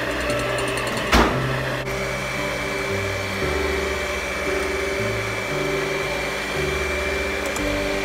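Electric hand mixer running steadily, its beaters whipping egg whites into meringue in a glass bowl, under background music with a stepping bass line. A sharp knock sounds about a second in, and a steady high whine comes in about two seconds in.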